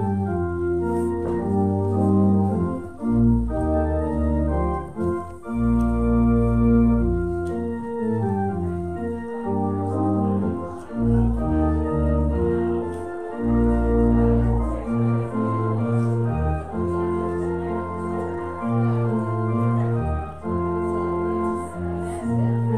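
Organ playing slow music in sustained chords over a deep bass line, the postlude after the closing prayer and benediction.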